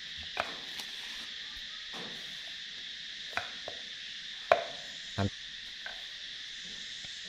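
Kitchen knife cutting pumpkin on a wooden chopping board: about half a dozen separate knocks, the loudest about four and a half seconds in. Insects keep up a steady high drone throughout.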